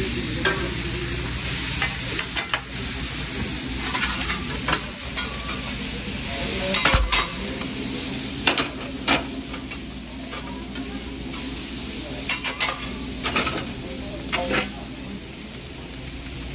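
Bacon sizzling on a flat-top griddle, with frequent sharp scrapes and clacks of a metal spatula against the griddle surface.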